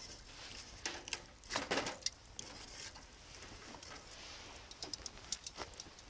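Wood fire crackling, with scattered sharp snaps and pops from the burning logs. About a second and a half in there is a louder rustling clatter as the logs are shifted with fire tongs.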